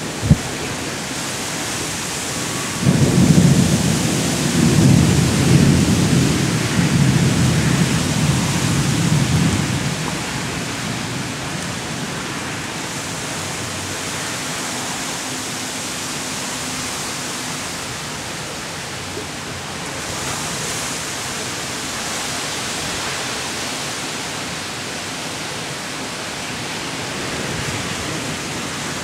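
A long roll of thunder rumbles for about seven seconds, starting about three seconds in, over steady rain.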